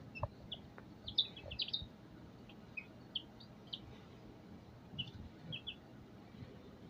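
Young chicks peeping: short, high chirps scattered irregularly, some in quick pairs or triplets.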